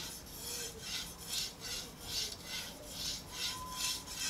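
Shun Premier 8-inch chef's knife stroked back and forth on a whetstone: a steady rhythm of scraping, hissing strokes of steel on stone, about two to three a second, as the left side of the edge is sharpened.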